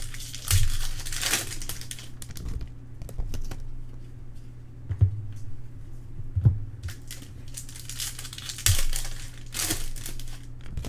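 Trading card pack wrappers crinkling and tearing in repeated rustling bursts as packs are opened and the cards are handled, with a few soft knocks on the table. A steady low hum runs underneath.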